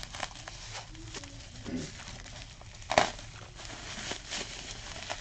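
Bubble wrap on a package being handled and pulled at: plastic crinkling and rustling with small clicks, and one loud sharp crack about three seconds in.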